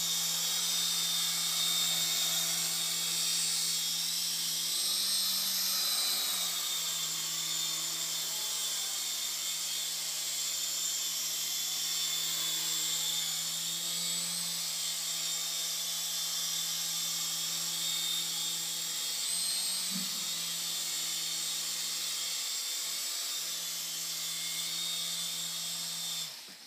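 Mini RC helicopter in flight: a high electric-motor whine over a steady rotor hum, shifting in pitch briefly a few times, then cutting off near the end as it sets down.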